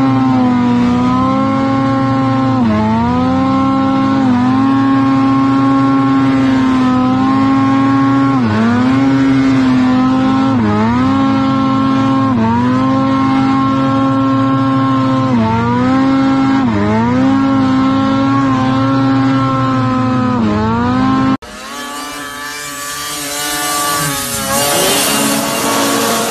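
Snowmobile engine held at high revs at speed, its pitch dipping briefly and recovering about every two seconds. About 21 seconds in it cuts to a rougher rushing noise that builds near the end.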